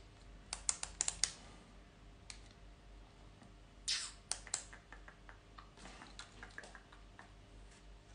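Light clicking of keys being pressed, in short irregular clusters about half a second in, around four seconds, and again between six and seven seconds, over a faint low hum.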